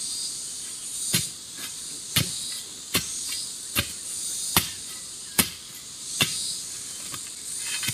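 A long digging pole stabbed repeatedly into the soil to dig out wild yam roots: seven sharp strikes, a little under a second apart. Under them runs a steady high hiss of insects.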